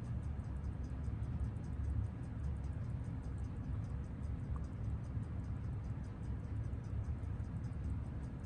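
Seiko 6139 automatic chronograph movement ticking at about six even beats a second while it sits on a timegrapher for regulation, over a steady low rumble.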